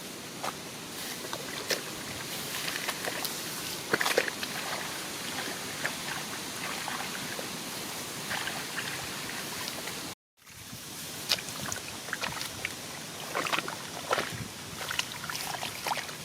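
Shallow field water sloshing and splashing as hands and legs move through a flooded rice paddy, with many short, irregular splashes over a steady trickling wash. The sound cuts out completely for a moment about ten seconds in.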